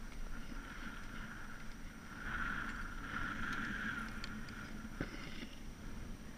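Chairlift running: the haul rope and sheave wheels whirring, louder for a couple of seconds as the chair passes a lift tower, over a low rumble, with a single click about five seconds in.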